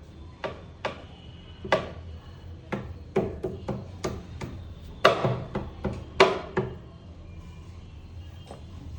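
A series of sharp, irregular knocks, about fifteen in some six seconds, with the loudest around five and six seconds in, then they stop.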